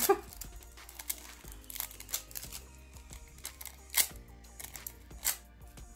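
Nail transfer foil crinkling in short, scattered rustles and clicks as it is handled and pressed onto gel-coated plastic nail tips, the loudest about four seconds in, over soft background music.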